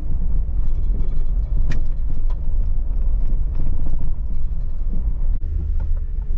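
Ford F-250 Super Duty pickup being driven, a steady low rumble of engine and road noise with a couple of sharp clicks.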